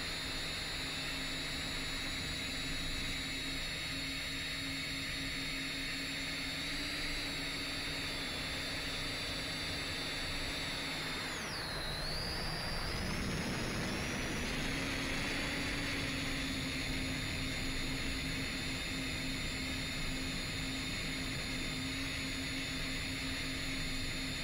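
A 10-inch FPV drone's motors and propellers whining steadily, heard from on board with a hiss of wind. About halfway through, the whine drops sharply in pitch as the throttle comes off for a dive, then climbs back as power comes on again to pull out.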